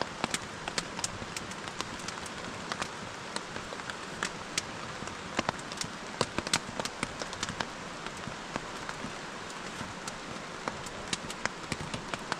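Rain falling on a tarp overhead: a steady hiss with irregular sharp drop taps.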